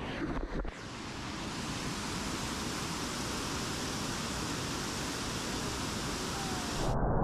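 Steady rushing of river water pouring over a concrete weir into churning white water, with a few handling knocks on the microphone in the first second. Near the end the sound changes abruptly to a duller, muffled rumble.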